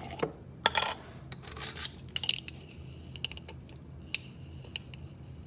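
Metal screw lid being twisted off a glass jar of flax seed: a run of sharp clicks and clinks of metal on glass in the first two seconds, then lighter ticks as the open jar is handled.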